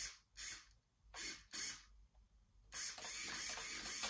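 MG996R servo whirring as it swings the RC car's steering flap back and forth: four short whirs in two pairs, then a longer, stuttering whir of about a second and a half near the end.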